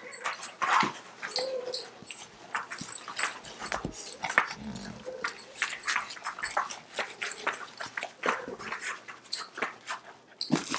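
Dogs playing with plush toys: scuffling and shuffling, with a few short whines.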